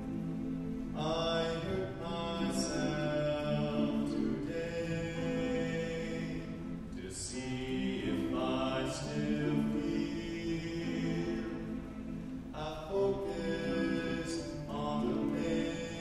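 A youth choir singing a slow song, holding long chords in several parts, with the hissing consonants of the words coming through now and then.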